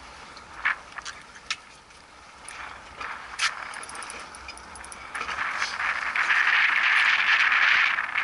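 Large spinning reel's drag buzzing as a hooked giant trevally pulls line off, a steady rasp that starts about five seconds in and holds loud to the end, after a few sharp clicks earlier on.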